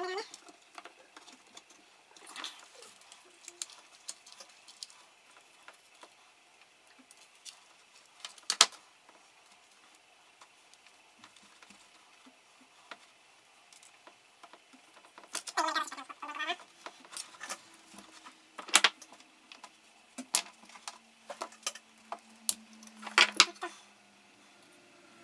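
Hand tools and small metal parts clicking and clinking during bench work on a concrete vibrator, with several sharp knocks and a brief squeak about sixteen seconds in.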